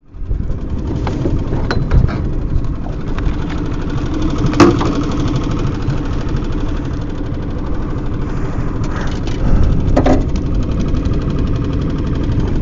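Boat motor running steadily with a low rumble, and a few sharp knocks, the loudest about four and a half seconds in.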